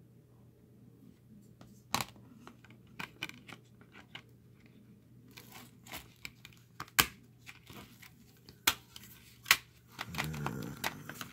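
Clear plastic Blu-ray case and discs being handled: sharp plastic clicks and rattles as a disc is worked at its centre hub, with paper or card rustling near the end.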